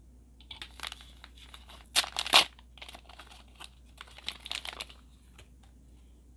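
Small plastic packaging being crinkled and torn open by hand, in bursts of rustling, loudest about two seconds in, with more crinkling a second later.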